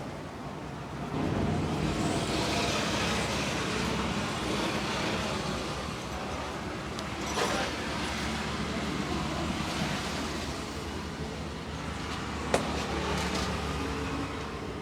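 Road traffic: a motor vehicle running close by, its engine and road noise swelling about a second in and holding steady, with a few sharp clicks, the loudest near the end.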